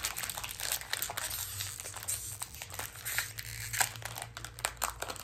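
Foil wrapper of a Pokémon Fusion Strike booster pack crinkling and tearing as it is opened by hand: a dense, irregular run of crackles.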